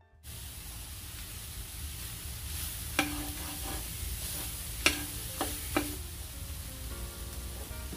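Ground turkey, carrot and pea filling sizzling in a stainless steel skillet as it is stirred, with the utensil clanking against the metal pan four times, each clank ringing briefly.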